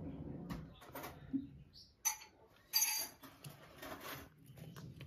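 Muscovy ducklings pecking at feed in a bowl: scattered light taps and clicks against the bowl, with a couple of short, high peeps.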